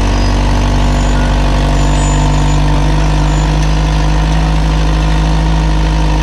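Rock crawler's engine idling steadily at low revs.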